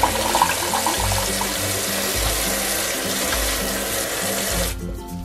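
Kitchen tap water pouring onto rinsed rice noodles in a stainless steel colander in a steel sink, a steady splashing hiss that cuts off suddenly near the end as the tap is shut. Background music with a regular bass line plays underneath.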